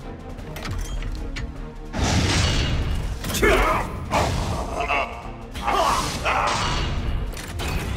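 Cartoon battle soundtrack: background music mixed with impact and whoosh effects. A character's yelling cries come through in the middle.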